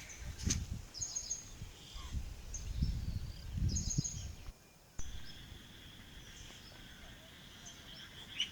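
Birds chirping in short repeated calls over gusts of wind buffeting the microphone. About halfway the sound drops out briefly, then a steady high buzz runs on under fainter chirps.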